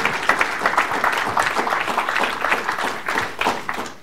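Audience applauding: dense, irregular clapping from many hands that fades out near the end.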